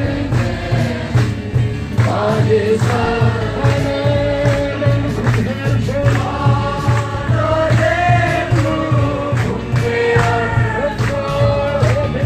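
A group of voices singing a gospel worship song together, over a steady, evenly repeating drum beat.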